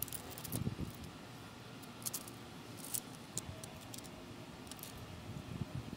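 Faint handling noise: two soft low bumps, about half a second in and near the end, and a few light clicks over a quiet background.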